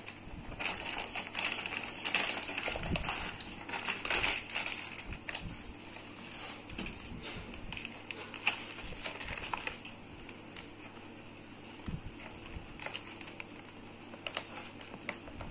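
Kraft-paper bakery bag crinkling and rustling as hands handle and unfold it, a run of small irregular crackles, busier and louder in the first few seconds.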